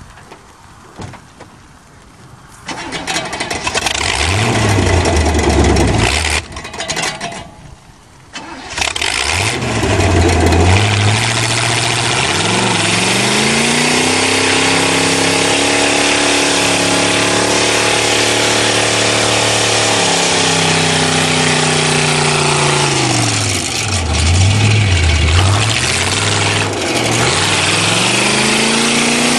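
Car engine turning over and catching twice, then revved hard and held high for several seconds, the revs falling away, dipping twice and climbing again near the end, as the car is worked off the wreck of a burning fridge.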